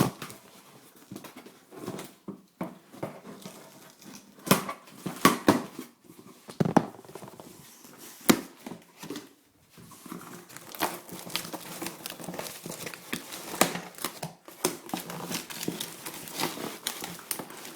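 A cardboard box being opened and unpacked by hand: packing material crinkling and rustling, with irregular sharp clicks and knocks.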